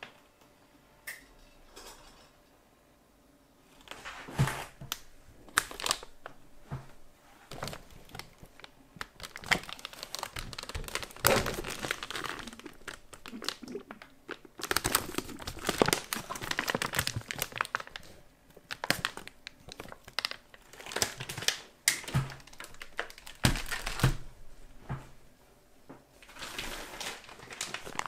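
Plastic packaging crinkling in irregular bursts as it is handled, after a few quiet seconds at the start. There is a light thump a few seconds before the end.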